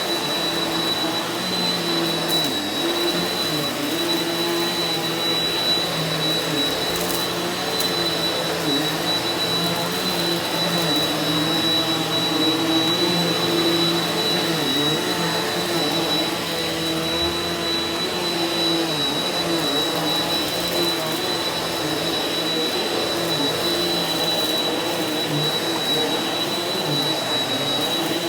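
Eureka NEU180B Power Speed upright vacuum cleaner running steadily over carpet, with a constant high whine from its motor and small wavering changes in pitch as it is pushed back and forth.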